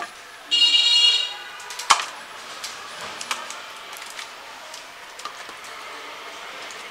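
A short high-pitched squeal, then one sharp knock, then a run of soft taps and clicks as pieces of raw hilsa fish are handled and dropped into a large bowl on a hard floor.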